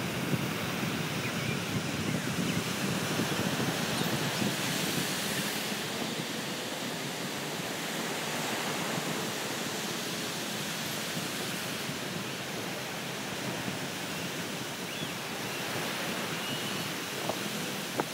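Small ocean waves breaking and washing over a shallow beach, a steady surf hiss, with wind buffeting the microphone, strongest in the first half.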